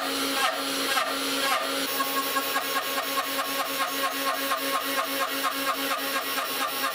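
MPCNC router's spindle running while its stepper motors drive a 60-degree V-bit down into black-painted plywood again and again, drilling halftone holes. The result is a steady repeating rhythm of about two strokes a second that quickens to about four a second a second and a half in.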